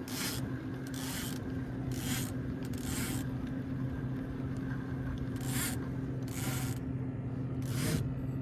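Short rasping scrapes, seven in all, roughly once a second with a pause in the middle, over a steady low hum.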